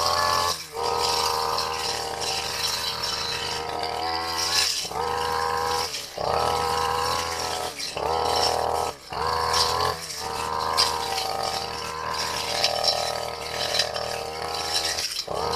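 Brush cutter engine running at high speed while its blade cuts long grass, with short sudden dips in the sound every second or two.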